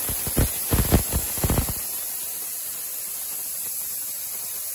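Spray gun hissing steadily as it sprays contact cement onto plywood, with a few short thumps in the first second and a half.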